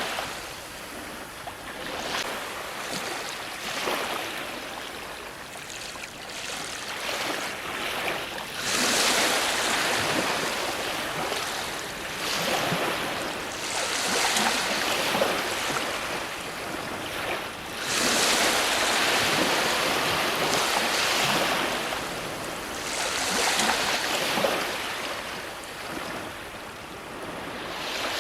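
Ocean surf breaking on a shore and washing back, swelling and easing every few seconds.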